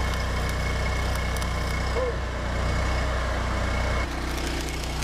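Stick arc welding on a steel frame: the arc crackles and hisses over a steady low hum, then stops about four seconds in.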